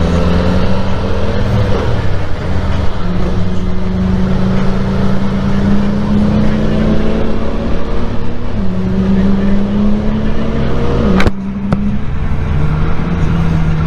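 Yamaha motorcycle engine pulling in second gear, its note climbing gently as the bike speeds up, with wind noise over it. A sharp click about eleven seconds in is followed by a brief dip in the engine note.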